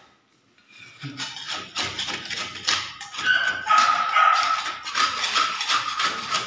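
Hand scraper scratching old paint off a plastered wall in repeated short strokes, the flaking paint coming away. From about three seconds in, a steady high whine runs over the scraping.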